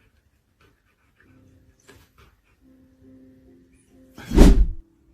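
Soft background music with steady sustained notes, broken about four seconds in by one loud, half-second rush of noise.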